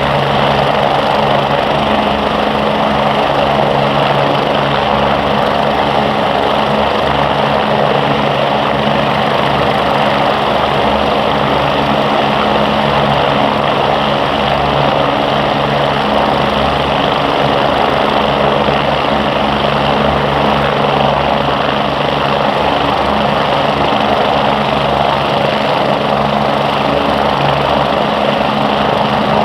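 Eurocopter/MBB BK117 twin-turbine helicopters in formation, running steadily with a constant rotor and engine noise that holds the same level throughout.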